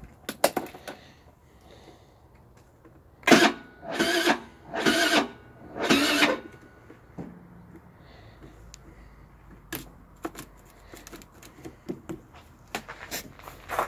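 Electric starter of a GY6 72cc scooter engine cranking in four short bursts on a weak battery in deep cold, after a few clicks from the ignition key.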